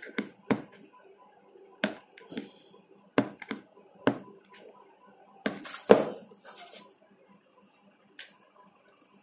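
Fingers and fingernails handling the plastic back cover of a Lumia 535 phone around its camera lens: a string of about ten irregular sharp clicks and knocks. The loudest comes about six seconds in, and the sound thins out to a single click near the end.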